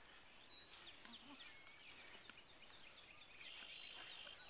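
Faint outdoor ambience with birds chirping: a short call about a second and a half in, and a quick repeated trill near the end.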